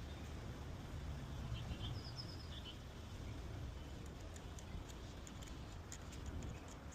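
A bird chirping a quick run of short, high notes about a second and a half in, over a faint low rumble, with a few faint small clicks later on.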